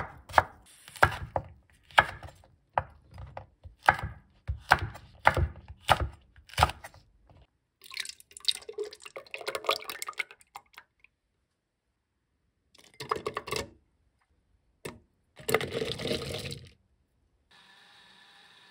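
Chef's knife julienning a carrot on a wooden cutting board, sharp chops about two a second for the first seven seconds. Then liquid is poured into a plastic blender jar, with a few short handling noises, and near the end a faint steady hum of the blender running.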